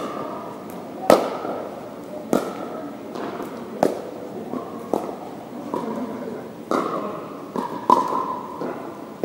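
Pickleball rally: hard paddles hitting a plastic pickleball, about seven sharp pops roughly one every second or so, each ringing briefly in a large gym.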